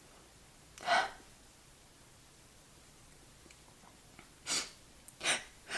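A person sneezing once, sharply, about a second in, then two short breathy bursts near the end.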